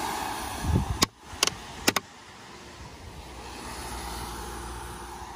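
Plastic retaining clips of a BMW 135i's wing-mirror cap clicking loose as the cap is prised off with a cloth-wrapped flathead screwdriver: four sharp clicks between one and two seconds in, the last two in quick succession. Steady traffic noise underneath.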